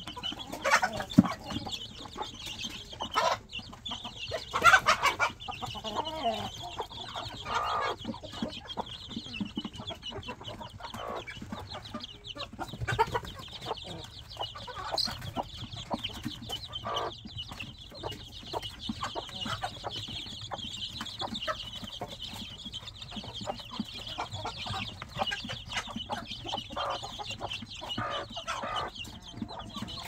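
A brood of cheonggye (green-egg) chicks peeping constantly in a high, thin chorus, with their mother hen clucking among them. The hen's louder clucks come several times in the first eight seconds.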